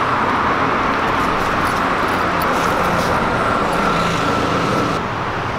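Steady road traffic noise from passing vehicles, easing slightly near the end.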